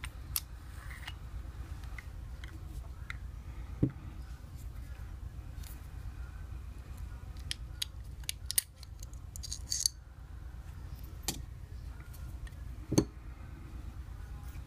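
Small metal clicks, scrapes and clinks of a Springfield 1911 V10 Ultra Compact pistol being field-stripped by hand. Two sharper knocks come about four seconds in and near the end. A steady low hum runs underneath.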